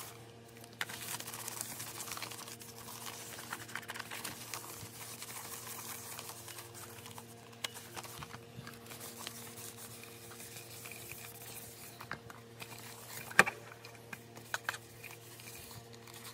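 A disposable wipe rustling and rubbing over the plastic case of a Bush PS404 personal cassette player as it is wiped clean, with one sharp click a little after thirteen seconds in. A faint steady hum sits underneath.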